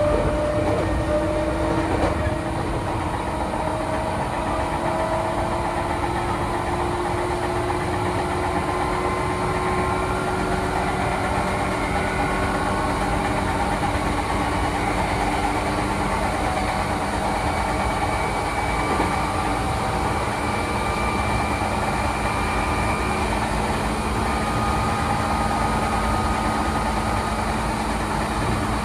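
Electric train running, heard from inside the driver's cab, with the traction motors whining and their tones climbing slowly in pitch as the train picks up speed out of the station, over a steady rumble of running noise.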